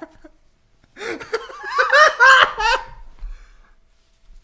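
Hearty, high-pitched laughter in a quick run of 'ha' pulses. It starts about a second in and dies away after about two seconds.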